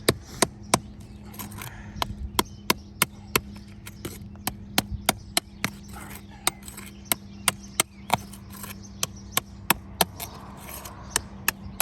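A quick series of sharp, short knocks, about three a second in runs with short pauses, over a steady low hum.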